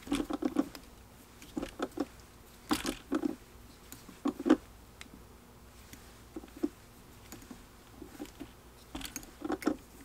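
Irregular soft clicks, taps and rustles of a fly-tying bobbin and thread being handled at a vise while thread is wrapped around the hook, in short clusters over a faint steady hum.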